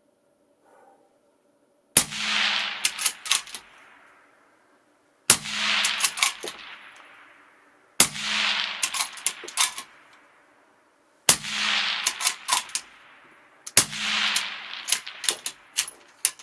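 Scoped rifle with a large muzzle brake firing five shots about three seconds apart. Each shot is followed by a long, fading ring in the shooting shed and a quick run of sharp cracks.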